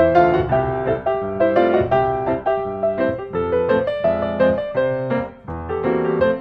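Piano music playing a quick run of separate notes and chords.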